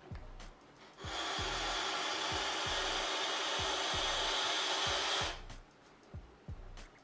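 Steady hiss of a long draw on a FreeMax Fireluke Mesh sub-ohm tank, its 0.15-ohm mesh coil firing at 40 watts, for about four seconds from about a second in, then cutting off.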